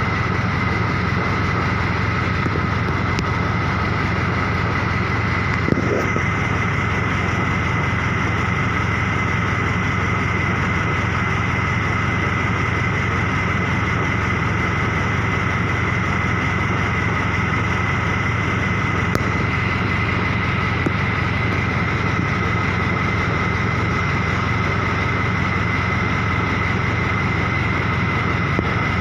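An engine idling steadily, a constant low drone with a steady high whine over it, and a faint knock or two.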